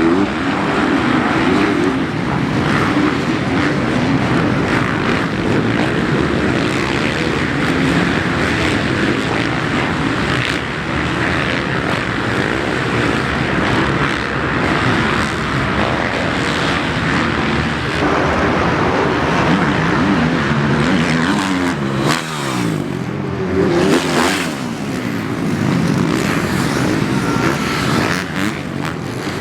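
Motocross dirt bike engine revving, its pitch rising and falling over and over as the throttle is worked.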